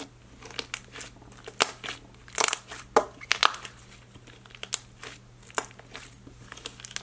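Hands squishing and pressing a clay slime mixed with foam beads: a run of irregular sticky pops, clicks and crackles, densest about one and a half to three and a half seconds in.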